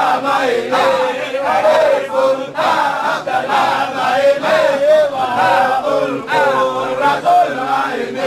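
A group of men chanting a Sufi dhikr together in a rhythmic, repeated chant, the voices pulsing about twice a second.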